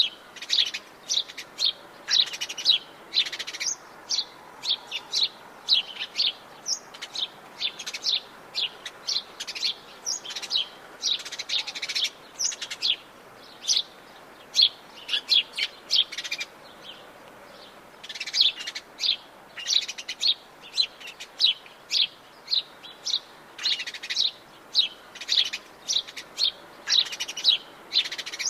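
Birds singing in the Atlantic Forest: rapid, repeated high chirps and short phrases from one or more birds, with a brief lull about two-thirds of the way through, over a faint steady background hiss.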